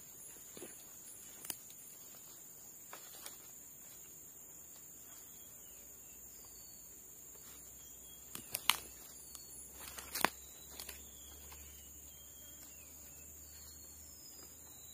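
Forest ambience: a steady high-pitched insect drone with faint bird chirps. A few sharp clicks and knocks come from the wooden poles and rope being handled during the lashing, the loudest in a short cluster a little past halfway and one more soon after.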